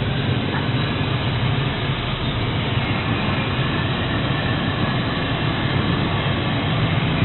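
A CNC plasma cutter running: a steady hiss over a low hum, with no breaks or changes.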